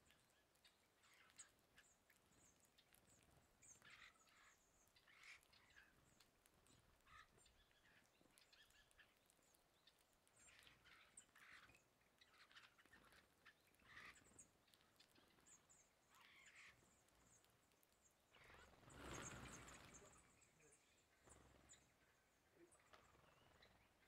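Faint, high, thin calls from a flock of small songbirds feeding on the ground, repeated throughout, with scattered soft short sounds. About three-quarters of the way in, the loudest sound: a brief rush of wingbeats as the flock flies off.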